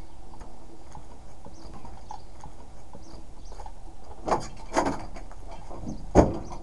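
A vehicle door being handled: a couple of metal clicks as it is worked a little after four seconds in, then the door pulled shut with one loud knock about six seconds in.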